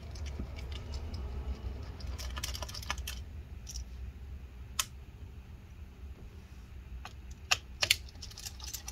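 Light, scattered clicks and taps of a precision T5 Torx screwdriver backing out the small speaker screws of a MacBook Pro and the screws being set down, over a low steady hum. The sharpest clicks come near the middle and a pair near the end.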